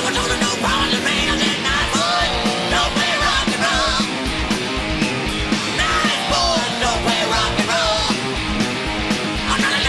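Rock music playing, with a steady drum beat and a singer's voice.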